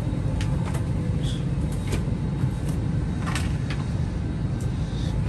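Steady low hum of an airliner cabin, with scattered light clicks and rustles as a shoulder bag is handled.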